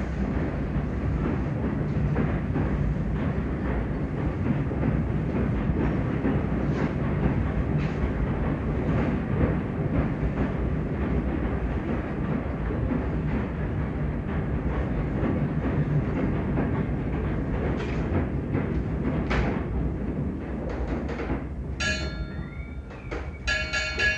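Steam train running on rails: a steady heavy rumble with frequent clanks and rail clatter. Near the end come two brief high-pitched tones, each sounding several notes at once.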